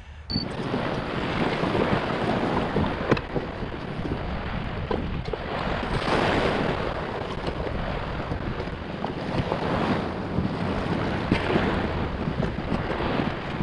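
Wind buffeting the microphone over small surf waves washing up a beach, swelling and easing every few seconds, with a few small knocks.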